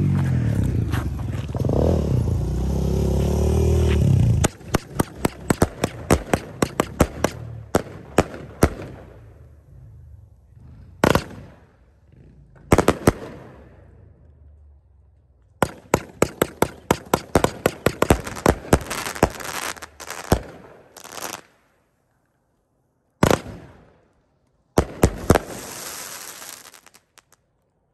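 A 32-shot angled consumer fireworks cake firing. After a few seconds of low rumbling comes a fast run of sharp shots, then a couple of single bangs and a second rapid volley, with crackling near the end.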